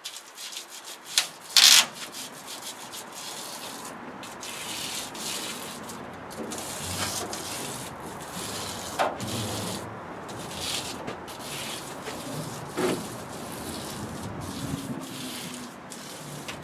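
Foil bubble insulation (Thermowrap) crinkling and rubbing as the roll is unrolled and handled, with a sharp loud crackle about two seconds in and a few smaller ones later.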